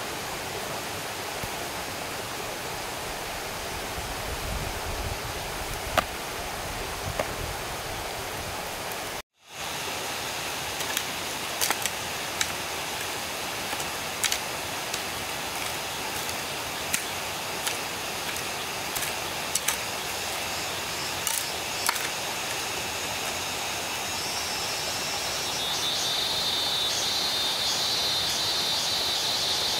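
Steady rushing outdoor noise, like running water, with scattered light clicks and knocks over it. A high, fine insect trill comes in near the end.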